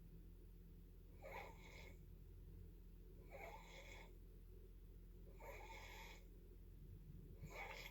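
Faint snoring: four wheezy, hissing breaths about two seconds apart, over a steady low hum.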